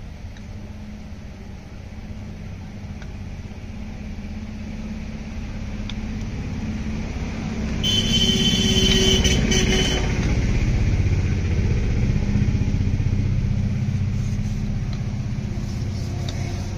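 A motor vehicle's engine running close by, a steady low hum that grows louder toward the middle and eases off slowly, with a high-pitched sound for about two seconds at its loudest.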